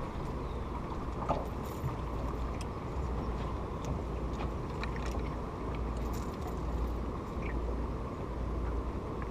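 Steady low rumble of wind and moving water around a drifting boat, with a few faint clicks and taps scattered through it.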